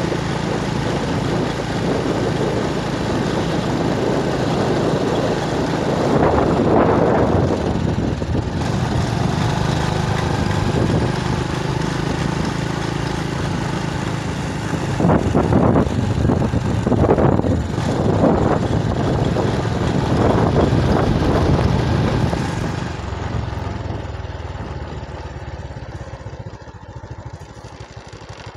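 Motorbike engine running steadily while riding, with a rushing noise of wind and road that swells twice, then fading away over the last few seconds as the ride slows.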